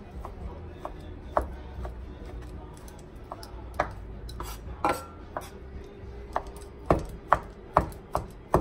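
Chef's knife chopping smoked turkey meat on a wooden cutting board: irregular sharp knocks of the blade striking the board, coming closer together near the end.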